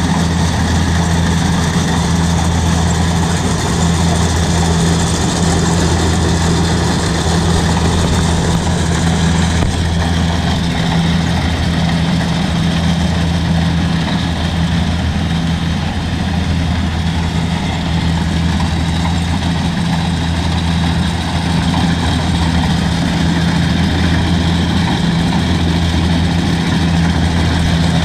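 Kubota crawler combine harvester's diesel engine running steadily under load while cutting and threshing rice, a constant low engine hum with the even mechanical whirr of the header and threshing works over it.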